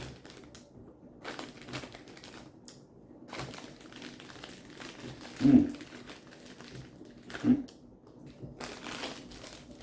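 Plastic snack packet crinkling and rustling as it is handled, with two short vocal sounds from the man, about halfway through and about two-thirds of the way through.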